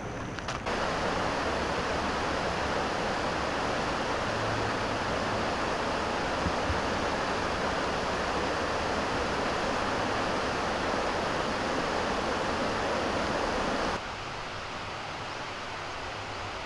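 Steady rushing of flowing river water, starting abruptly about a second in and cutting off suddenly near the end.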